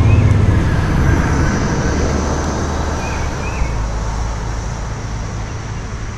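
A fire engine driving past on the road: its engine rumble and road noise are loudest at first, then fade as it moves away.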